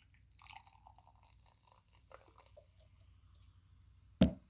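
Carbonated energy drink poured from a can, heard faintly as short gurgling glugs in the first couple of seconds, followed near the end by a single sharp, loud knock.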